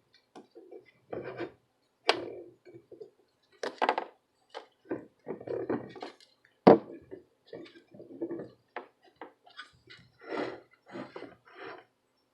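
Irregular short knocks, taps and scrapes of hand tools and a circuit board being handled while desoldering a charging port.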